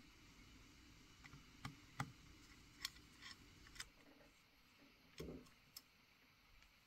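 Faint, scattered clicks and light taps, about seven over a few seconds, from the small metal valve-gear parts of a Lionel toy steam locomotive being handled and fitted onto their timing pin.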